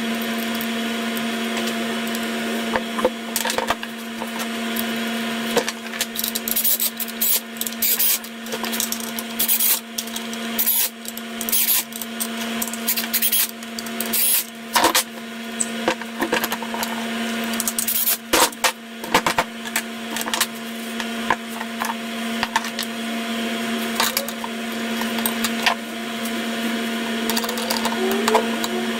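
Metal parts of a small hydrostatic motor clicking, knocking and scraping as they are handled and fitted together by hand, over a steady background hum.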